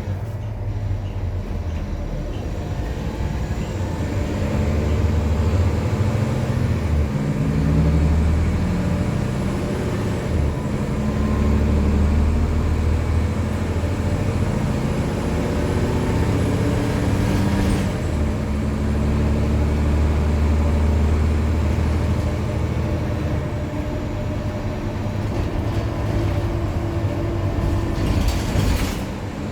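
Nova Bus city bus with a ZF automatic transmission running under way. The diesel engine note rises and falls several times, stepping as the gearbox shifts, with a faint high whine drifting through the middle.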